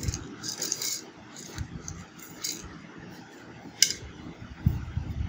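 Light clicks and rattles of whole spices (cloves, peppercorns, cardamom pods, cinnamon) being picked off a plastic tray and dropped into a metal bowl of raw mutton. There is one sharper click past the middle and a few low bumps near the end.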